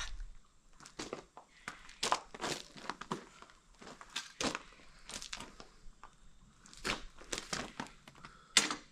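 A small piece of steel bracket being bent: a string of irregular knocks and taps, the sharpest near the end.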